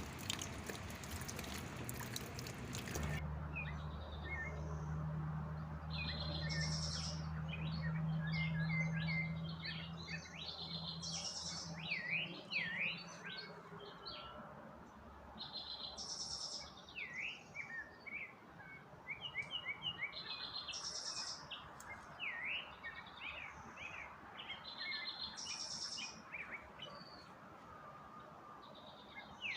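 Wild birds singing and calling: short repeated high chirps and quick sweeping notes from several birds. A low steady hum runs underneath through the first third.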